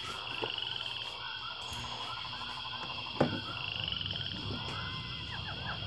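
A background chorus of calling animals: rapid pulsed trills and evenly pulsed croaking calls repeating over a steady high hum. A single sharp knock comes a little over three seconds in.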